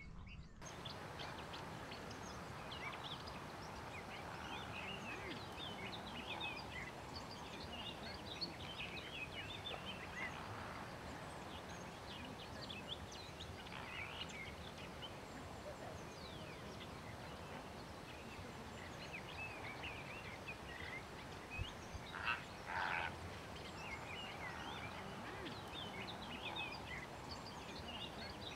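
A flock of flamingos calling continuously, many overlapping short honking and gabbling calls, with two louder calls about 22 seconds in.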